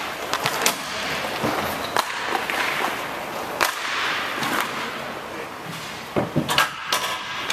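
Hockey sticks clacking sharply against the puck and the rink floor over a steady rolling hiss of skates. A quick run of clacks comes near the end.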